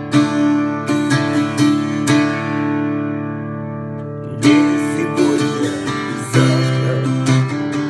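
Music: acoustic guitar strumming chords in an instrumental passage of a song. One chord is left to ring and fade for a couple of seconds midway, then the strumming picks up again.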